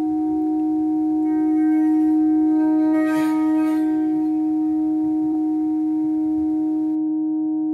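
Ambient drone music: a sustained low tone held steady with several fainter steady tones above it. A brief shimmering swell comes a little after three seconds in, and near the end the faint hiss over the tones drops away, leaving only the plain held tones.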